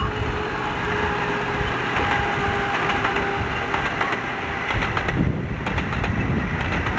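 A 7¼-inch gauge miniature railway train passing: the small locomotive's engine runs and the loaded passenger carriages roll along the track, with a scatter of wheel clicks between about four and six seconds in.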